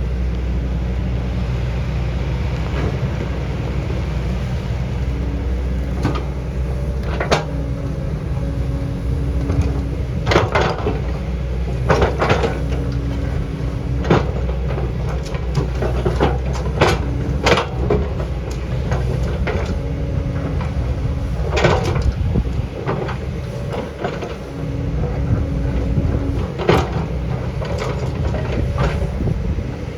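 Excavator's diesel engine running steadily under load while it works a rocky hillside, with repeated sharp knocks and scrapes of steel on rock.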